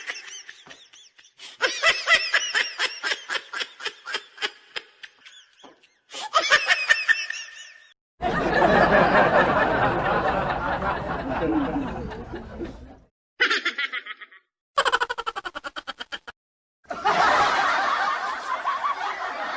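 A string of separate laughter sound-effect clips, each cut off abruptly: short rhythmic laughs in the first half, then two longer stretches of many people laughing together, with brief laughs between them.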